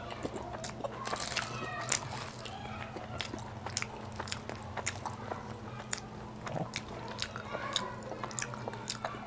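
Close-miked chewing and mouth sounds of a person eating, with many quick wet smacks and clicks over a low steady hum.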